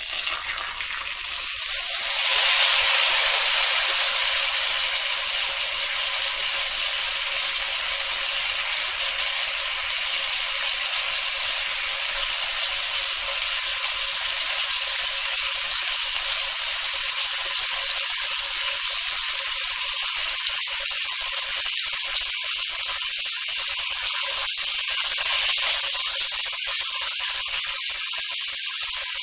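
Meat sizzling on a hot grill: a steady hiss with faint crackles, swelling louder a couple of seconds in and again briefly near the end.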